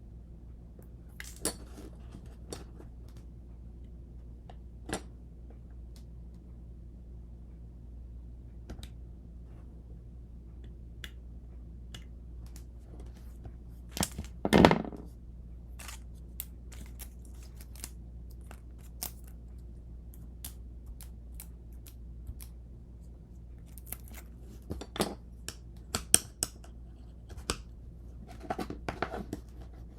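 Scattered small clicks, taps and rustles from wrapping glass pieces in copper foil tape and burnishing them by hand, with one louder scraping rustle about halfway through and a quick run of taps near the end, over a steady low hum.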